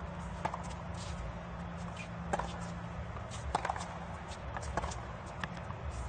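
A tennis rally on a hard court: rackets striking the ball and the ball bouncing make a series of sharp knocks about a second apart, over a low steady hum of the stadium.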